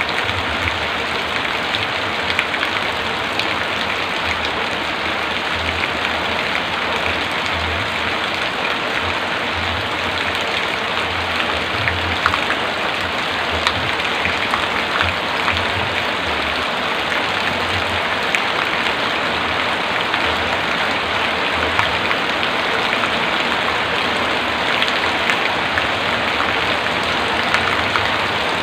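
Heavy rain falling steadily: a dense, even hiss with many small drop ticks through it and a faint, uneven low rumble underneath.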